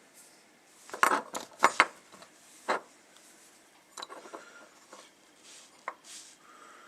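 Airsoft inner barrel and hop-up chamber parts being handled and fitted together, clicking and clinking against each other: a quick run of sharp knocks about a second in and another near three seconds, then lighter clicks.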